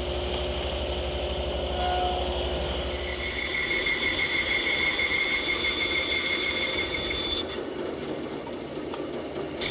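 Stationary woodworking power saws: a table saw running, then a bandsaw cutting through a cypress workpiece with a steady high whine. The cutting noise stops suddenly about seven seconds in.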